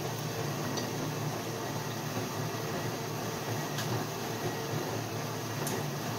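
A dishwasher running: a steady, even hum and hiss that does not change, with a few faint clicks over it.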